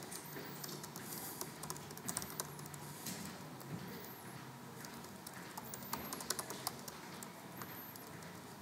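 Typing on a laptop keyboard: quiet, irregular key clicks.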